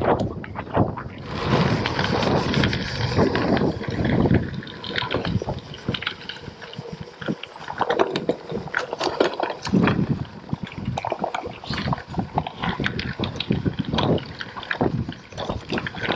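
Tyres of a Scott Speedster gravel bike rolling over a loose gravel path, an uneven crunching noise peppered with many small sharp clicks and rattles, with wind buffeting the action-camera microphone.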